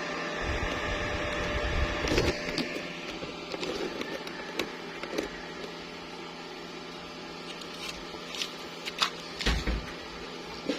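Steady electrical machine hum, with scattered sharp clicks and a few low knocks, the loudest about 2 seconds in and near the end.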